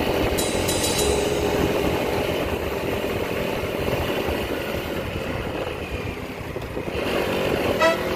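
Motorcycle running along a highway: steady wind and road noise mixed with the engine, with no speech.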